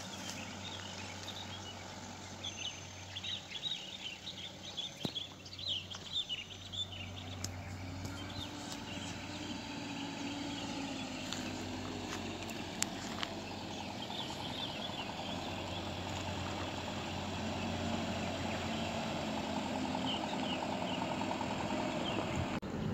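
A light truck's engine running and slowly getting louder as the truck approaches on a gravel track, with its pitch rising and falling a little midway. Birds chirp over it, mostly in the first half.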